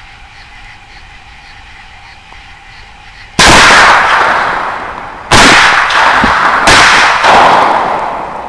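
Four rifle shots, the first about three and a half seconds in and the last two about half a second apart. Each is a sharp crack followed by a long echo that dies away over a second or two.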